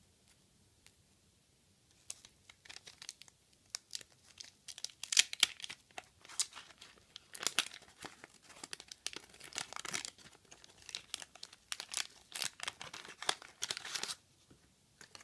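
Waxed-paper wrapper of a 1985 trading-card wax pack being torn open and crinkled by hand: crackling tearing and rustling that starts about two seconds in and stops near the end.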